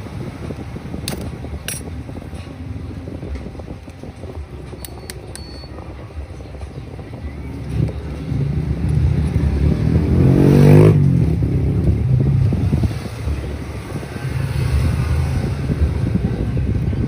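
Road traffic rumbling, with a motor vehicle engine swelling and fading as it passes about ten seconds in. A few sharp clicks in the first five seconds.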